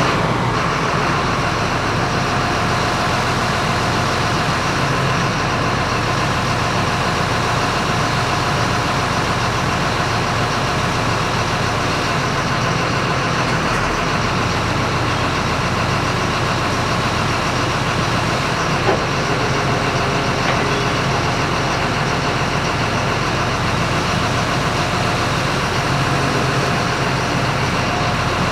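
Engine idling steadily, freshly started, with one light tick about 19 seconds in.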